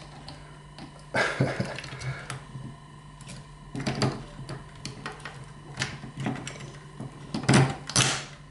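Irregular clicks, knocks and rattles of hands handling small screws, washers and the plastic case of a slide projector while fitting its transformer, a few seconds apart, with the loudest near the end. A faint low hum runs underneath.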